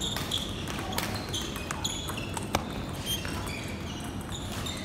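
Table tennis ball clicking off the paddles and the table during a rally: a handful of sharp, irregularly spaced knocks, the loudest about halfway through, with a few short high squeaks between them.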